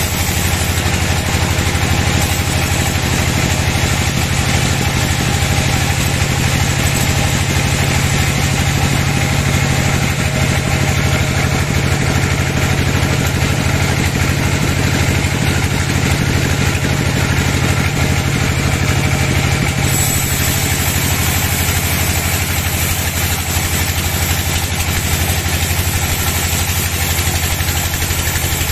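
Band sawmill running steadily, its blade sawing lengthwise through a teak log over the constant hum of the mill's drive.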